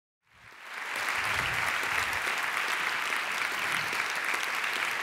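Audience applauding, fading in over the first second and then holding steady.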